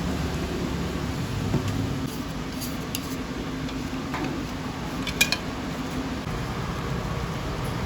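A few light clinks of metal kitchen utensils at a street-food stall, the loudest a double clink about five seconds in, over a steady low background hum.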